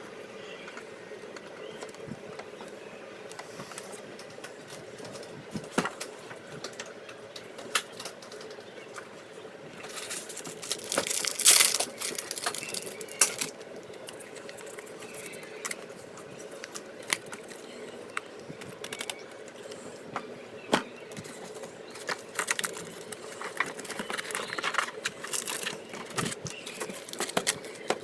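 Trading card packs and cards being handled during an unboxing: scattered clicks and taps of cards, with a louder spell of wrapper crinkling about ten to thirteen seconds in, over a steady low hum.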